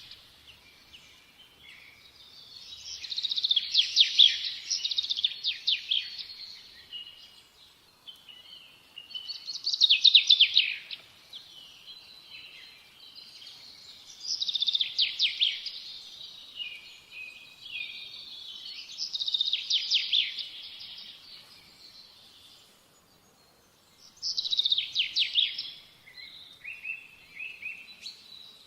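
A songbird singing: bursts of rapid, high chirping notes lasting about two seconds, repeated every four to five seconds.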